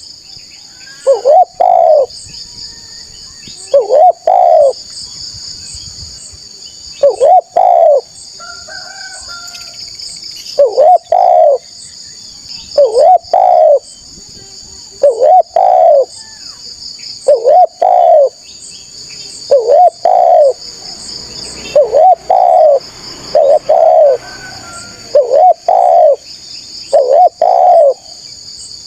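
Spotted dove (tekukur) cooing over and over, in short phrases of two or three notes about every two seconds. A steady high-pitched buzz runs underneath.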